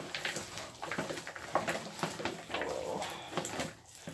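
Gloved hands rubbing seasoning and chopped vegetables into raw fish in a plastic bowl: irregular wet squelches, rustles and light clicks.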